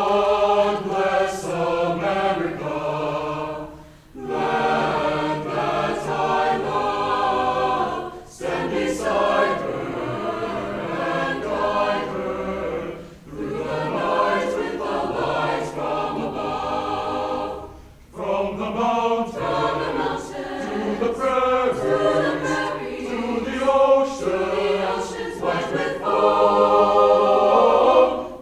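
High school concert choir singing in long phrases, with brief breaks between phrases about every four to five seconds.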